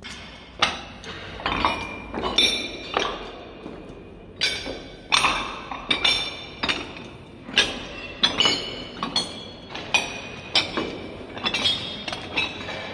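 Loose metal face-discs clanking and ringing as they are trodden on. The strikes come irregularly, about one or two a second, and each is followed by a ringing tail that echoes off the bare concrete walls around it.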